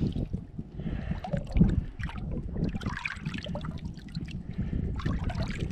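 Water splashing and sloshing at the side of a boat as a large redfish is held in the water for release, with irregular handling knocks and a louder thump about a second and a half in. Wind buffets the microphone.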